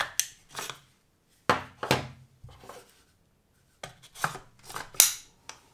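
The detachable plastic box magazine of an ATA Arms Turqua bolt-action rifle being fitted to and worked in its magazine well. It gives a series of sharp clicks and short plastic-on-metal scrapes in small groups, the loudest snap about five seconds in.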